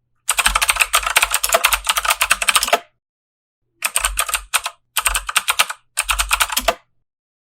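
Mechanical keyboard typing: a fast run of key clicks lasting about two and a half seconds, then three shorter bursts of typing with brief silent gaps between them.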